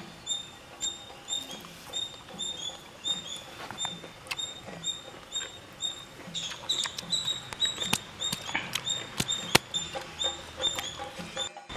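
Short, high chirping calls from a small animal, repeated about twice a second. From about six seconds in they come with sharp knocks as a hand stone strikes and crushes a guava on a stone grinding slab.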